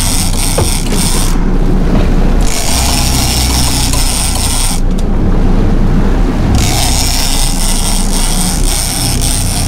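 A conventional saltwater reel being cranked hard against a hooked kingfish, its gears whirring in three spells broken by two short pauses of about a second each. A steady low rumble runs underneath.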